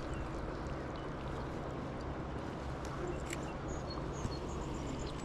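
Steady riverside ambience: an even wash of water noise under a faint low hum, with a light click about three seconds in.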